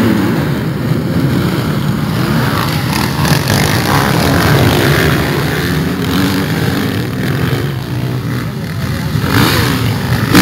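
A pack of motocross bikes racing off the start line and riding past close by, many engines revving over one another.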